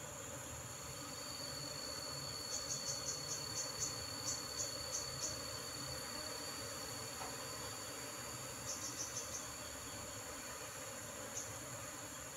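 Insects calling, cricket-like: a steady high-pitched trill comes in about a second in and stops near the end, while short sharp high chirps come in quick runs of about four a second, a long run a few seconds in and a shorter one later.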